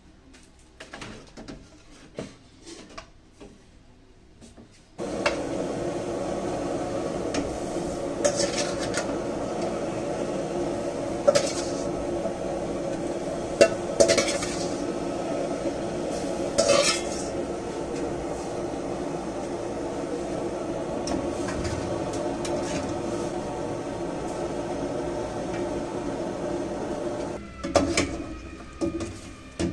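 Metal pots and utensils clinking and clattering on a gas stove, with a few sharp clinks. About five seconds in, a steady rushing noise from the lit burner and boiling pot starts and runs under them.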